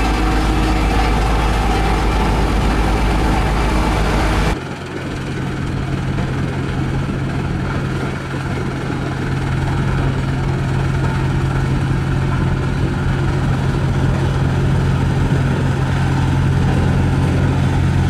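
Volvo SD110 single-drum road roller's diesel engine running as the roller drives over gravel. About four and a half seconds in, the sound switches to a HAMM 3410 single-drum roller's diesel engine running at a steady hum.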